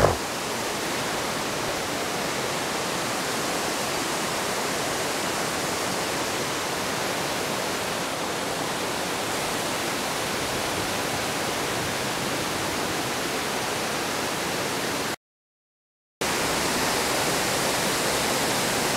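Steady rushing of water pouring over an old mill dam's spillway, broken by about a second of dead silence near the end.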